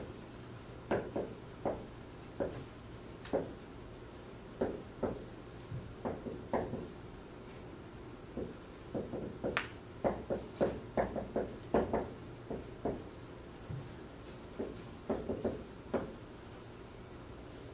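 Dry-erase marker writing on a whiteboard: short, irregular squeaky strokes as words are handwritten, with a couple of brief pauses between words.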